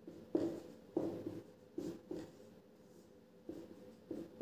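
Marker pen writing on a whiteboard: about six short separate strokes with brief pauses between them.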